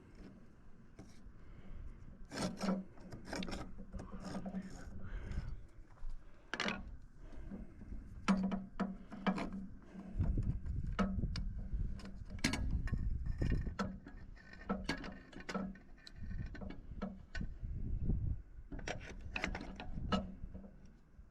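Irregular knocks, clicks and scraping from hand work on timber framing, with a low rumble about ten seconds in.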